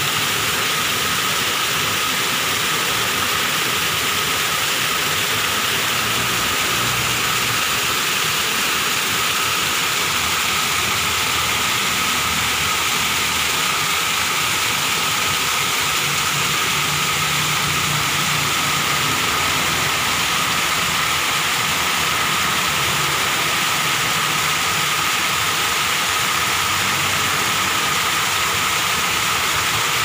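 Natural waterfall pouring over rocks: a steady, even rush of water. A thin steady high tone runs through it.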